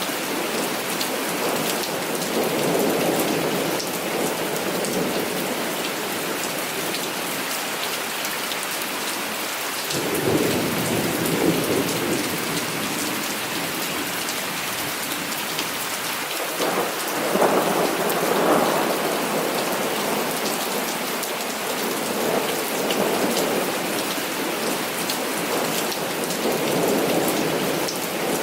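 Heavy rain falling steadily, with rolls of thunder swelling about ten seconds in and again around seventeen seconds.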